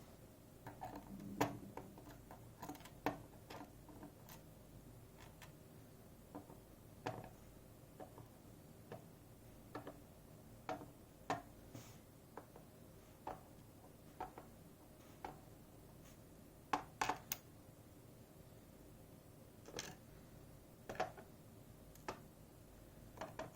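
Irregular small clicks and taps of metal lock parts and tools being handled while a Robur safe deposit lock is taken apart, with bunches of clicks near the start and again about two-thirds of the way in.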